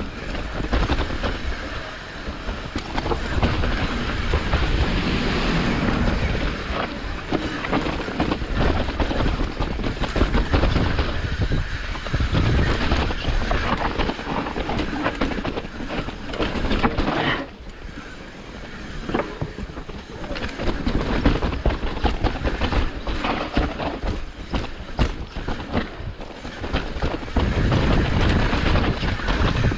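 Hardtail mountain bike riding a rough trail: tyres rumbling over dirt and rocks, with the chain and frame rattling in quick irregular clatters and wind buffeting the microphone.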